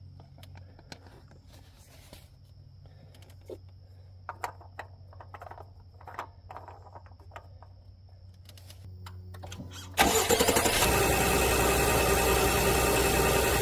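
Faint clicks and taps as the funnel is pulled out and the oil filler cap is fitted. About ten seconds in, the Acura MDX Type S's 3.0-litre turbocharged V6 starts and runs steadily: the first start after an oil change, run to fill the new filter with oil.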